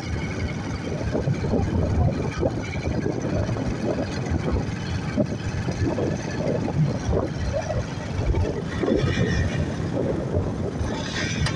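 A motorbike running at speed, with wind buffeting the microphone, and a brief higher-pitched sound near the end.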